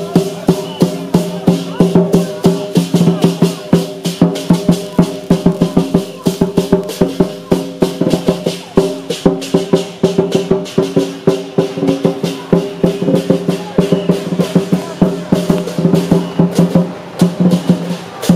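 Temple procession music: fast, clattering percussion strikes over steady held tones.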